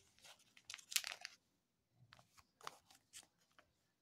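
Faint crinkling and rustling of plastic and paper packaging as small wrapped gift items are handled, in short scattered crackles, busiest about a second in.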